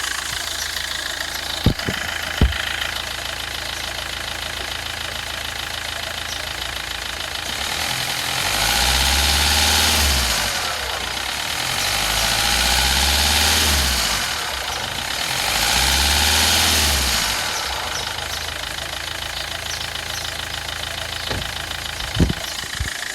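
Kia Rio 2007 1.5 CRDi common-rail diesel engine idling, revved up three times in a row in the middle and dropping back to idle after each, with a couple of sharp clicks near the start and end. The running noise is what the owner suspects may be the timing chain, on an engine with 270,000 km.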